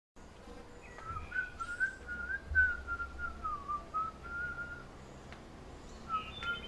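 A man whistling a slow, wandering tune through pursed lips. He stops for about a second near the end, then starts again. A dull low thump comes about two and a half seconds in.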